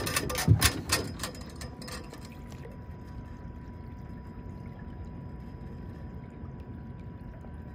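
A few sharp knocks and rattles in the first second, then water washing steadily along a slowly trolling boat's hull over a faint, even motor hum.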